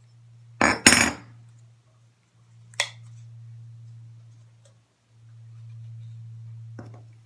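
Handling noises from a metal bathtub drain flange and a roll of thread-seal tape: a loud clink and knock about a second in, then two single sharp clicks, one near the middle and one near the end. A low steady hum runs underneath and cuts out briefly twice.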